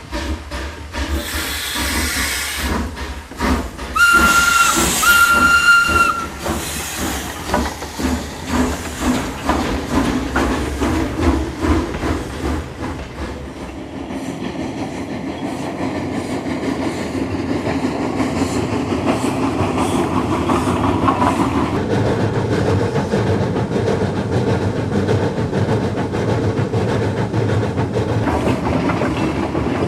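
Steam locomotive sound effects: steam hissing, two whistle blasts a few seconds in, then regular puffing that builds into the steady running sound of the engine getting under way.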